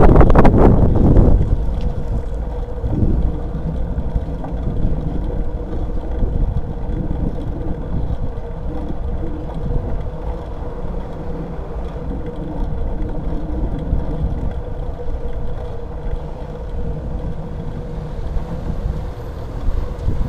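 Wind buffeting the microphone of an action camera mounted on a moving road bicycle's handlebars, over a low rumble from the ride. The wind is loudest for about the first second.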